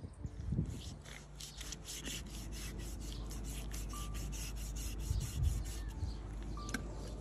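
A large knife scraping and cutting raw beef with the skin on, in quick repeated strokes about five a second.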